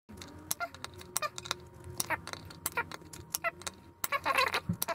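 Torque screwdriver with a T20 bit tightening steel scope-ring screws to 18 inch-pounds: irregular small metallic clicks, a few a second, with a quick, louder cluster about four seconds in.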